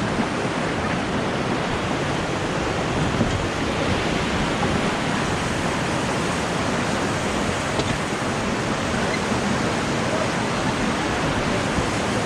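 Beas River whitewater rushing steadily, an even unbroken noise with no pauses.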